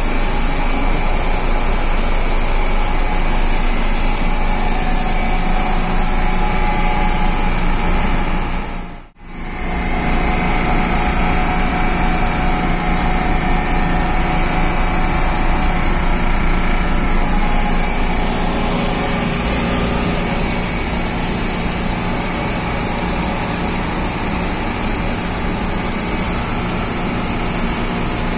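Steady, loud machinery running: the ship's accommodation air-conditioning unit with its compressors no. 1 and no. 2 in operation, a constant hum with a high hiss over it. The sound drops out for a moment about nine seconds in, then carries on unchanged.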